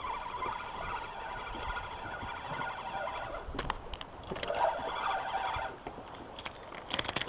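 Fishing reel being cranked to bring in a hooked fish: a wavering whir that stops about three and a half seconds in, followed by a few clicks and knocks. A second, shorter stretch of whirring comes about a second later.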